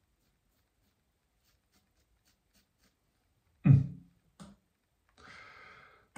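A sharp, loud knock about three and a half seconds in and a smaller knock just after, like hard objects set down on a bathroom surface. A soft hiss follows near the end.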